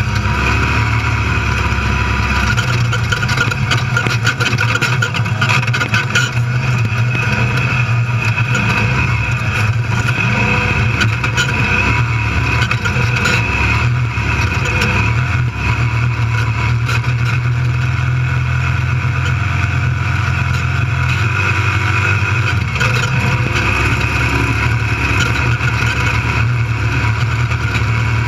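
Desert race vehicle's engine running steadily under way, heard from inside the cab, with scattered knocks and rattles as it runs over rough ground.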